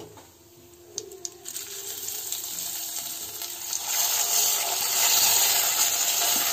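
Soaked rice poured from a plate into hot ghee in a clay pot, a few light clicks about a second in, then a sizzling hiss that builds and grows louder about four seconds in as the wet grains hit the fat.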